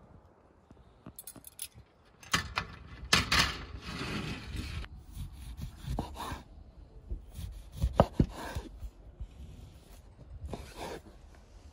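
A large knife slicing through an orange on a wooden cutting board: rasping cuts through the peel and flesh, each ending in a sharp knock of the blade on the board, several times over.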